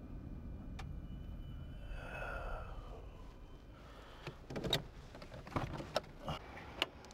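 Inside a car cabin, a low engine and road rumble runs as the car comes to a stop, with a brief falling squeak about two seconds in. From about four seconds in comes a run of clicks and knocks as the passenger door is unlatched and pushed open.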